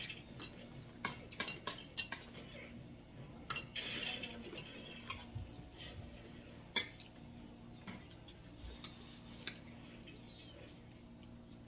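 Tableware clinking during a meal: scattered light clicks and taps of utensils and food against plates and bowls, with one sharper knock about seven seconds in.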